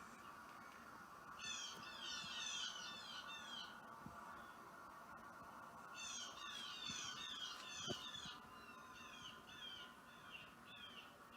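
Songbird song played back from a streamed bird video: two bursts of rapid, high chirping notes, then a slower run of separate repeated notes near the end, over a faint steady hum.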